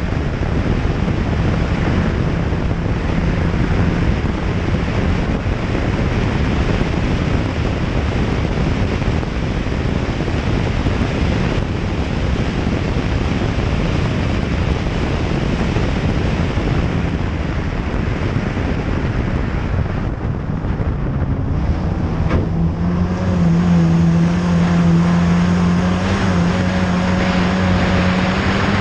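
Rally car at speed on a gravel stage: engine running hard under a heavy rush of wind buffeting the microphone and gravel road noise. In the last several seconds the engine's steady note comes through more clearly.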